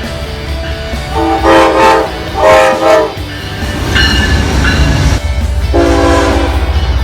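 Metra diesel locomotive's multi-chime air horn sounding: a long blast, a shorter one, then another long blast starting near the end, over the low rumble of the train.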